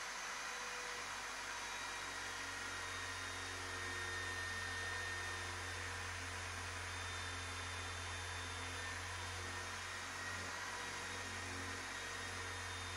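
Corded electric drill running steadily as a slightly blunt metal bit grinds a full-size hole through the steel lid of a drum without a pilot hole. The motor sags briefly twice near the end.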